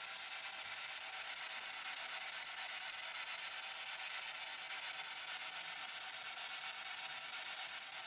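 Faint steady hiss with no distinct sounds in it: quiet room tone and recording noise.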